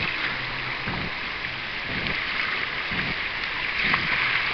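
Shallow river water rushing over a riffle around a moving canoe: a steady splashing hiss, with soft low thumps about once a second.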